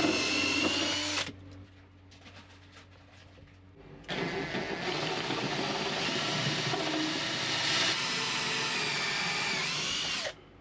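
Power drill with a long bit boring through fibreglass and foam insulation: it runs with a whine for about a second, stops, then runs again from about four seconds in for some six seconds before cutting off.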